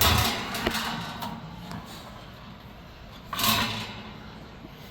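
Handling noise on the steel box fan while it is being turned and inspected: two short scraping, rustling bursts, one at the start and one about three and a half seconds in.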